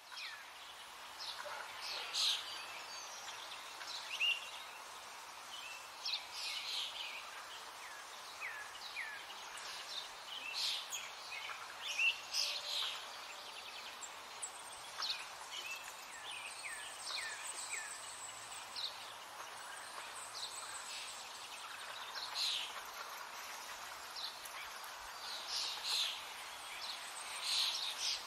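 Many small birds chirping, with short quick falling calls every second or so over a steady outdoor background hiss. A thin high tone runs for a few seconds past the middle.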